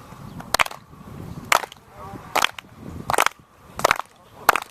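Sharp knocks or impacts at an even pace, a little slower than one a second, about six in a row.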